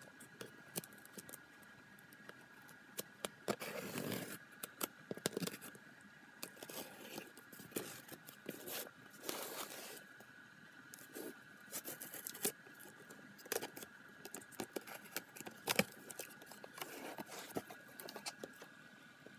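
Craft knife cutting and scraping through packing tape on a cardboard shipping box, with tape tearing and cardboard rustling in short irregular bursts and sharp clicks.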